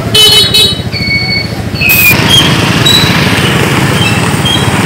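Motorbike engine running with a low, even rumble, and a loud high-pitched squeal just after the start, followed by many short high squeaks.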